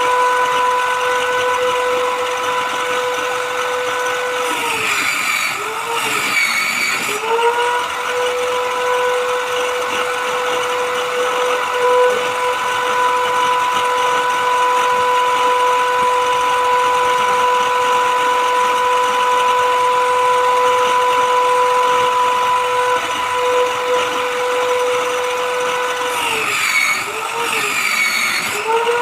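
High-speed electric power tool running with a steady high whine. Twice the pitch sags and recovers under a rasping hiss as it bites into the board.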